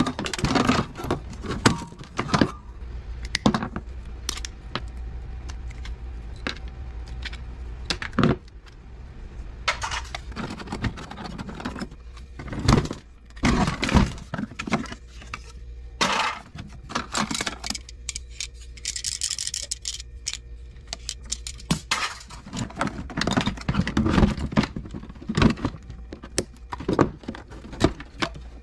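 Plastic and metal parts of a Keurig coffee machine clattering as it is taken apart by hand: irregular clicks, knocks and rattles of panels and small parts, with a short hiss about two-thirds of the way through.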